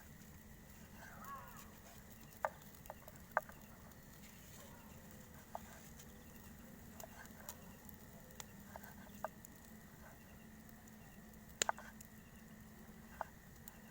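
Campfire crackling: sharp pops at irregular intervals, a dozen or so, over a faint steady background.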